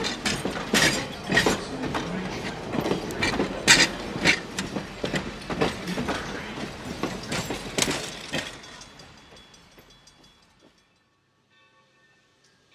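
Passenger coaches rolling past on jointed track, their steel wheels clicking and clacking in an irregular run of sharp knocks. The clatter fades away about eight to ten seconds in as the last car moves off.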